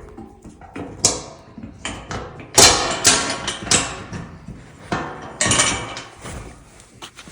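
Camping gear being handled: a run of irregular knocks, clunks and clatters of hard items, loudest about a third of the way in and again past the middle.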